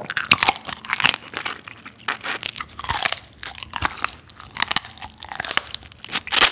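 Crab shell crunching and cracking as legs of soy-sauce-marinated raw crab (ganjang gejang) are bitten and chewed: a quick, irregular run of sharp crackles.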